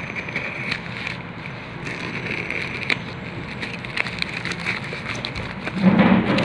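Plastic parcel wrapping and packing tape crackling and rustling as a courier parcel is slit with a box cutter and its wrapping pulled open, full of small clicks. A louder crinkling burst near the end as the bubble-wrapped contents are pulled out.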